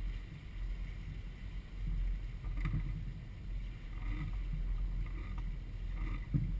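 A motor yacht's engines running, a low drone that rises and falls, with wind buffeting the microphone.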